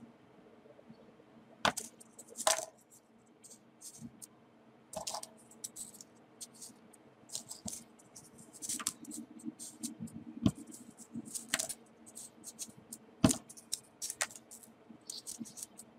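Folded paper units of a 3D origami model being handled and pushed into place: irregular crisp clicks, taps and paper scratches, with a few louder taps among them.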